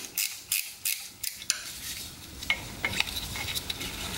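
Socket ratchet wrench clicking in quick back-swings, about three a second, while a bolt is backed out. It stops about a second and a half in, followed by a few light metal clinks.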